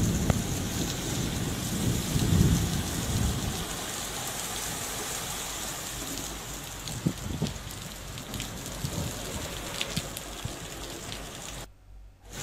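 Heavy rain pouring steadily on open ground. A low rumble runs under it for the first three or so seconds, then it settles into a steady hiss with scattered sharp drop ticks. The sound drops out briefly near the end.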